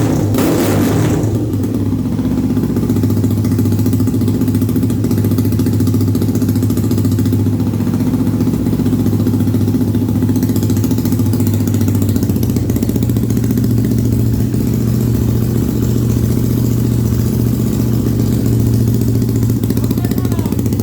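Single-cylinder Honda Twister engine bored out to 485 cc in a drag-racing prototype motorcycle, running: a burst of throttle dies away in the first second or so, then it idles steadily.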